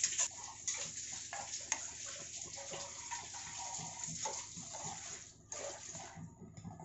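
Watery mutton keema in a pan, with freshly added water and ground spice paste: wet splashing and bubbling with small irregular pops, thinning out about five and a half seconds in.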